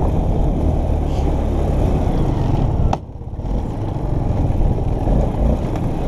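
ATV engine running under way as the quad climbs a rough dirt and rock trail, with a steady low rumble and rattle. About halfway through there is a sharp click, the sound drops off briefly, then builds back up.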